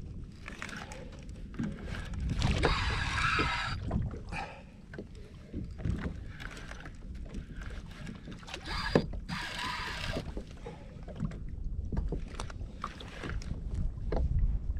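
Spinning fishing reel buzzing in two bursts of a second or two, once early and once in the second half, as a hooked fish is played on a bent rod. Wind rumbles on the microphone throughout.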